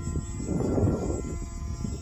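Wind buffeting the microphone with a low rumble that swells in a gust from about half a second to one second in, over a steady high whine from an electric RC model aircraft's motor in flight.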